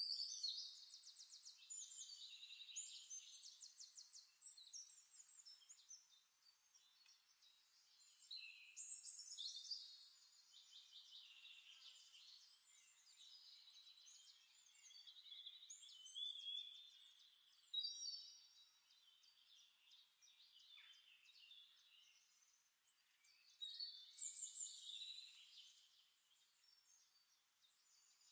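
Faint bird calls: high chirps and rapid trills coming in bursts several seconds apart.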